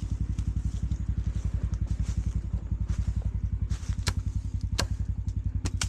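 Four-wheeler's Loncin engine running steadily, a fast, even low pulse with no revving, and a few sharp clicks over it near the end.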